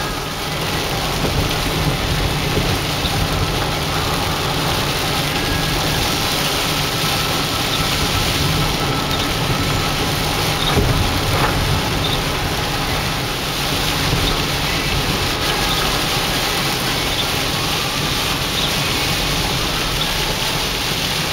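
Rain falling on a moving car's windshield and roof, heard from inside the cabin, over the steady hiss of tyres on the wet road.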